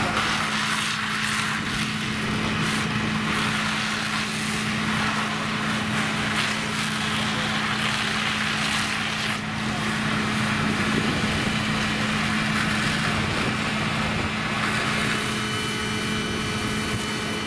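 Fire truck engine running steadily, a constant hum, over a broad even hiss.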